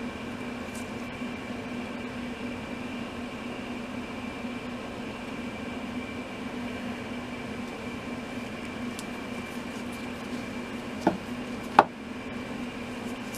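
Steady mechanical hum with a constant low tone, typical of a running fan or air-conditioning unit. Two short knocks come near the end, the second louder.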